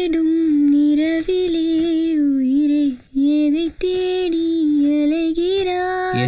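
A woman singing a tune in long, smoothly gliding held notes, with a brief break about three seconds in.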